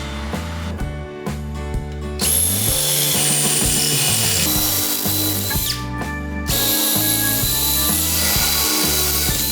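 An electric power tool motor runs with a high whine. It starts about two seconds in, winds down with a falling whine after about three seconds, then starts again and runs to the end. Background music with a stepping bass line plays throughout.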